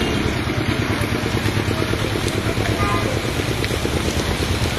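A small engine running steadily, a low rumble with a rapid pulse.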